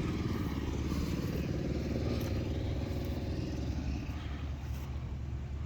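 A tractor engine idling steadily, a little quieter in the last second or so.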